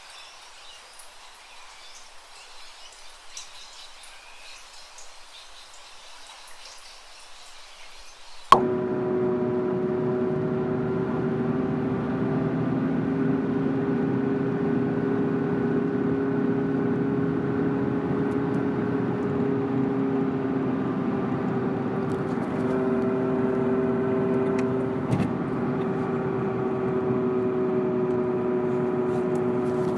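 Faint hissing background, then a sharp click about eight and a half seconds in and a car engine running with a steady, humming drone that wavers slightly in pitch.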